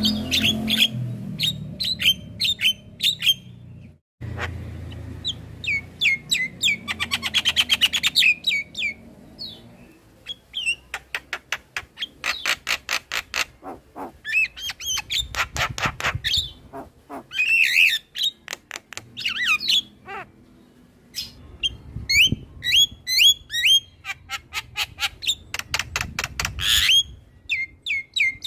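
Javan myna song: a varied stream of short chirps, squawks and whistled notes, broken by fast rattling runs of repeated notes. It cuts out for an instant about four seconds in.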